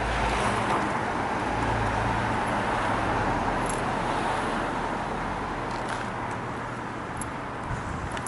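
Road traffic going by on a city street: a steady rush of tyres and engines, a little louder in the first few seconds and easing toward the end.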